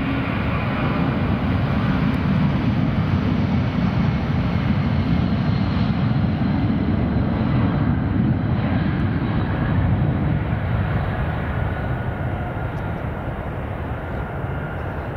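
Jet airliner's engines at takeoff power, a loud steady rumble that fades over the last few seconds.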